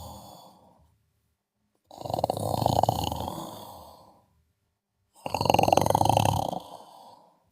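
Snoring from someone asleep: two full rattling snores, each about two seconds long and about three seconds apart, with silent gaps between them. The fading tail of an earlier snore ends about a second in.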